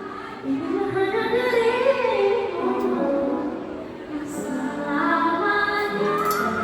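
Pop song with a female lead voice singing held, gliding notes over the band's sustained accompaniment.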